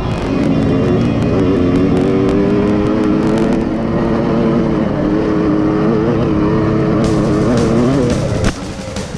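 KTM 65 SX's small two-stroke single-cylinder engine running under riding load, its pitch rising and falling with the throttle. The engine sound drops away near the end.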